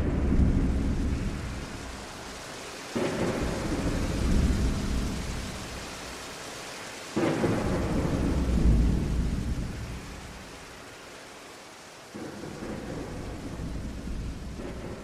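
Thunderstorm: steady rain with rolling thunder, sudden claps about 3, 7 and 12 seconds in, each rumbling deep and dying away over a few seconds.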